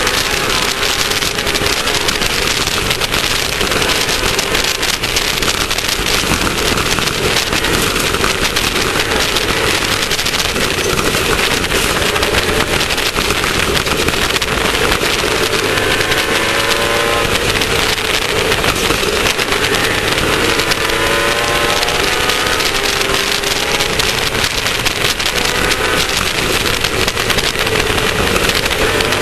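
Class 1600 off-road race car's air-cooled Volkswagen 1600 engine running hard at race speed, its pitch repeatedly rising and falling as the driver accelerates and lifts, over a steady loud rush of noise.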